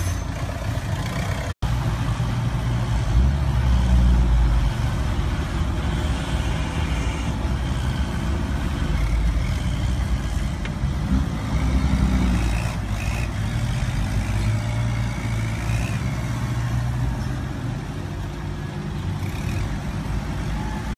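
Diesel engines of a farm tractor and a ten-wheel dump truck running together under load. The sound cuts out completely for a moment about one and a half seconds in.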